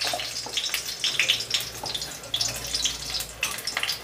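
A dried red chilli sizzling in hot mustard oil in an aluminium kadai, with many small irregular crackles and spits as it fries for the tempering.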